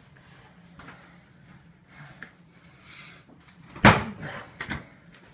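One loud bang about four seconds in, followed by a couple of lighter knocks, in a small enclosed room.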